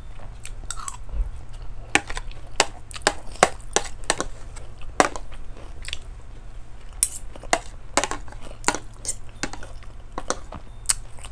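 Close-miked eating: chewing and mouth smacks on mouthfuls of rice, with a spoon and fork clicking and scraping on a plate in many sharp, irregular clicks.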